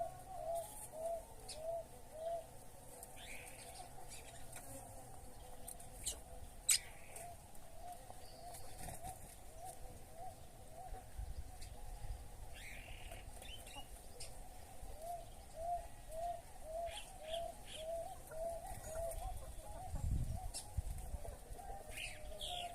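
Birds calling: runs of short, low, repeated notes, about two or three a second, that stop and start three times, with scattered sharp high chirps between them.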